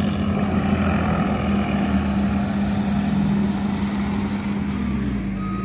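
Skid-steer loader engine running steadily, a constant even drone with no change in pitch.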